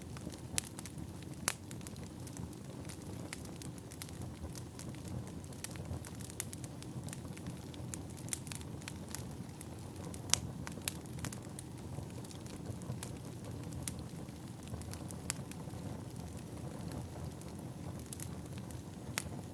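Burning firewood crackling: irregular sharp pops and snaps over a low, steady rush of the fire.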